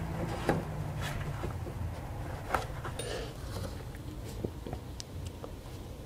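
A few small clicks and knocks of hand tools on metal as a bolt is turned to draw a new crankshaft pulley seal into a Porsche 356 engine case, over a low steady hum.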